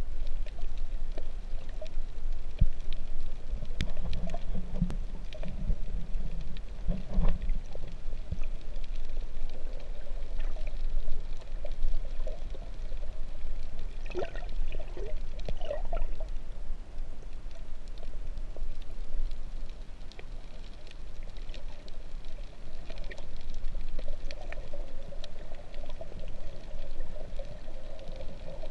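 Underwater water sound picked up by a GoPro camera in its waterproof housing while snorkeling: a steady low rumble with gurgles and bubbling, louder around the middle, and a few faint clicks.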